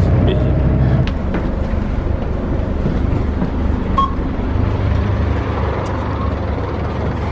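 Steady engine and road rumble of a moving bus, with a single short electronic beep about four seconds in as a myki card is touched on the reader.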